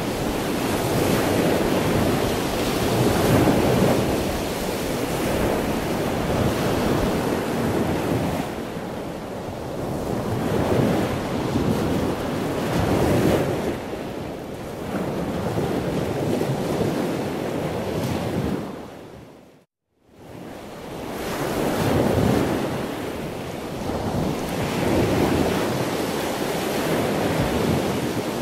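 Rushing wind noise on the microphone, swelling and easing every couple of seconds, with no engine note heard. The sound dips and drops out briefly about twenty seconds in, then comes back.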